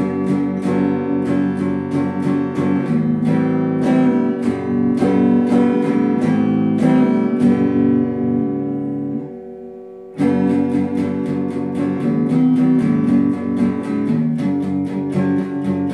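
Hollow-body archtop guitar strummed in a steady rhythm of chords, about three strokes a second. A little past halfway a chord is left to ring and fade for about a second before the strumming starts again.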